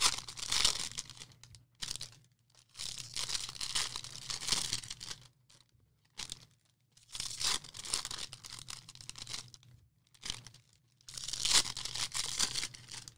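Baseball card pack wrappers being torn open and crinkled by hand, in about half a dozen bursts of rustling with short pauses between.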